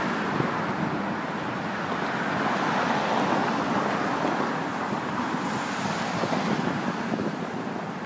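Steady outdoor city noise: a dense, even rush of traffic and wind.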